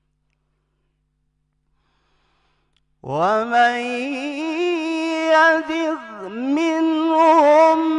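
A man reciting the Quran in a slow, melodic style into a microphone. After about three seconds of silence, his voice comes in with an upward slide and holds a long, ornamented note that dips in pitch about six seconds in, then carries on.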